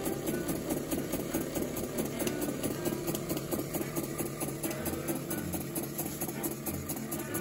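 Märklin 4122 toy vertical live-steam engine running fast and steadily, a rapid, even mechanical beat as it belt-drives a small dynamo.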